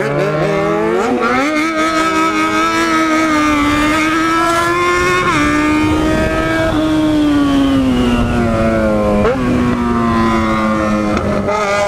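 Yamaha XJ6 inline-four engine and exhaust under way at speed. The pitch climbs over the first second and a half, holds high, then slowly sags, with short dips about five and nine seconds in.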